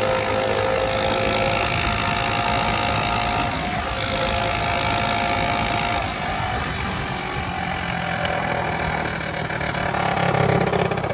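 Small single-cylinder engines running steadily.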